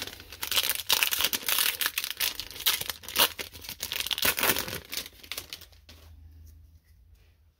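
Foil booster pack wrapper crinkling and tearing as it is pulled open by hand: a dense crackle that stops after about six seconds.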